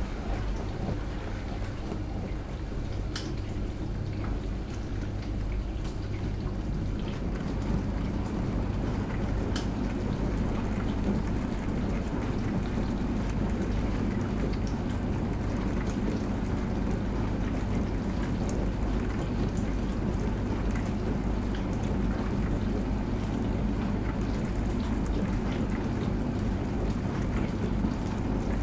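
Dishwasher running a wash cycle: a steady motor hum under the hiss and patter of water spraying inside the tub, the water noise swelling a little after the first few seconds, with a few faint clicks.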